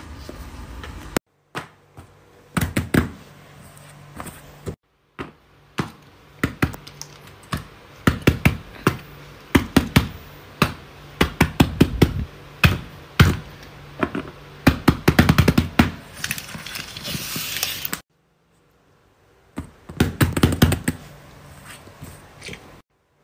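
Rapid taps and knocks of hands setting down and tapping small toys and objects on a tabletop, in quick clusters, over faint background music; the sound breaks off completely a few times.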